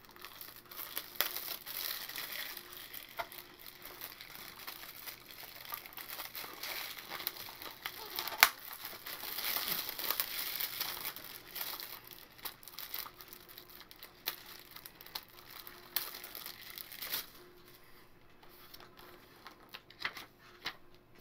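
Plastic shrink-wrap being torn and crinkled off a Blu-ray case, a steady crackling with scattered sharp clicks, the loudest click about eight seconds in. The crinkling dies down about four seconds before the end.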